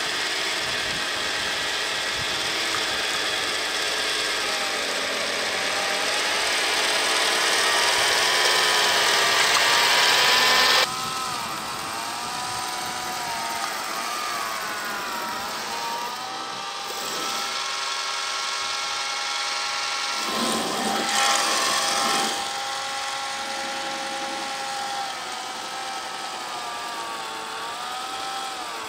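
Electric motors of a radio-controlled tracked snowblower running, whining steadily as the blower throws snow, the pitch rising and falling with the load. The sound changes abruptly about eleven seconds in.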